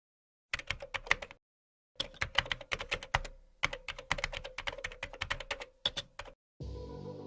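Typing on a computer keyboard: a short burst of quick keystrokes, a pause, then a longer run of rapid typing. Near the end the typing stops and a steady hum with held tones begins.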